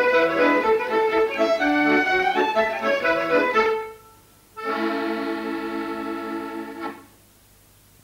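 Accordion music: a lively tune that fades out a little before halfway, then one held chord for about two seconds.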